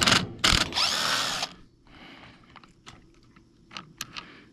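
A cordless driver with a T25 Torx bit whirs in short bursts and then runs for about a second, backing a cover screw out of a small trimmer housing. Light clicks follow as small screws and parts are handled.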